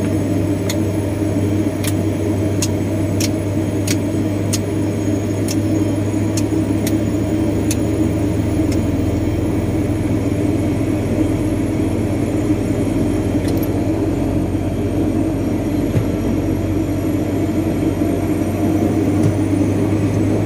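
Turboprop airliner's engine and propeller running steadily at low power, heard from inside the cabin as a steady drone with a deep hum. Light high ticks come about once or twice a second during the first eight seconds or so.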